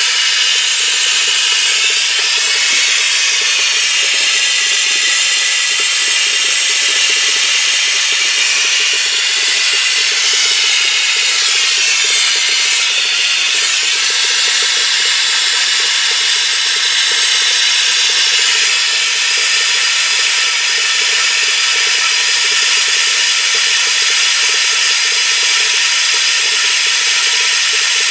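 Steady hiss of compressed air through a Mityvac MV7300 pneumatic vacuum brake bleeder, pulling air and brake fluid out of the lines through a hose on the caliper's bleeder screw.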